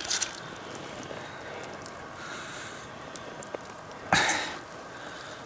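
Faint steady outdoor hiss, broken once about four seconds in by a short cough.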